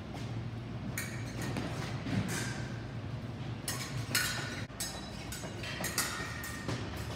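Épée blades clicking and clinking against each other in a run of quick engagements, several contacts ringing briefly, with thuds of footwork on the fencing strip.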